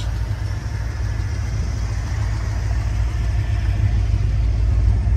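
1980 Chevrolet Corvette's 350 V8, fitted with headers and Flowmaster mufflers, idling steadily with a low exhaust note.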